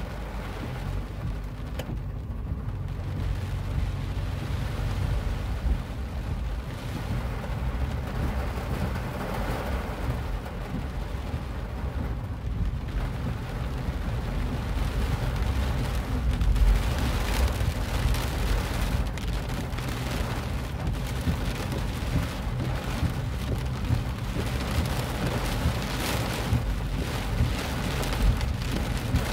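Heavy rain pelting a car's roof and windshield, heard from inside the moving car over the low rumble of the car on the road; the patter grows denser about halfway through.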